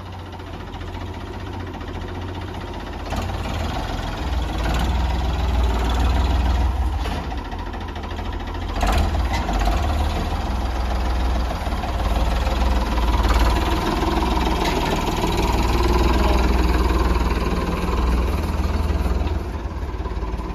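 Ford 3600 tractor engine running as the tractor drives off towing a trailer, getting louder about three seconds in as it comes closer, with small swells in level after that.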